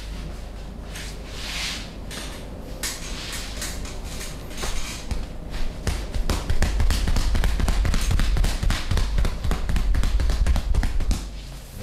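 Percussive body massage: light rubbing strokes at first, then from about six seconds in a fast, dense run of taps and thumps on the body that lasts about five seconds.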